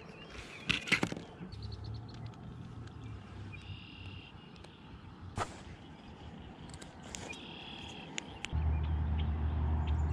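Fishing tackle being handled: a clear plastic jig-head pack clicking and snapping a few times, with birds chirping briefly twice. A steady low hum starts suddenly near the end.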